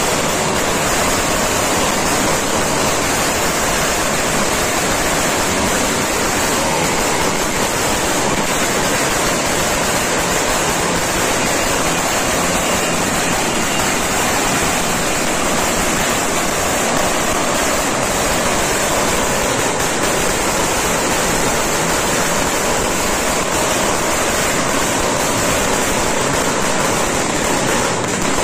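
Firecrackers and fireworks going off without a break, their bangs and crackles blurring into one steady, loud wall of noise.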